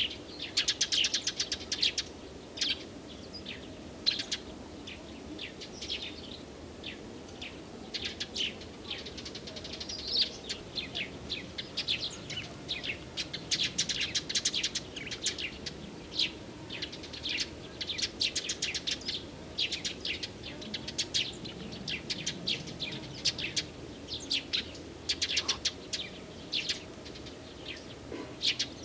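Small songbirds chirping and singing in quick, high notes, several at once, in near-continuous runs.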